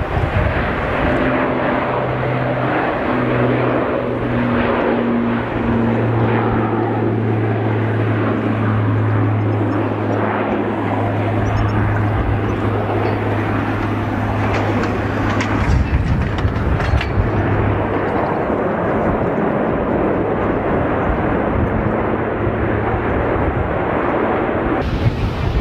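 Airbus A380 airliner's four jet engines running loud and steady, with a low steady hum underneath that stops a little past halfway through.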